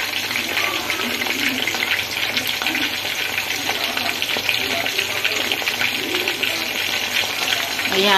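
Chicken pieces frying in mustard oil in a pan: a steady, dense sizzle and crackle of bubbling oil.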